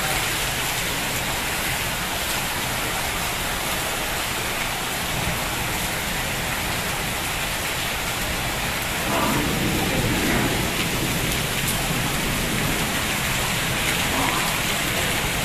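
Heavy rain pouring steadily onto a flooded lane, growing a little louder about nine seconds in.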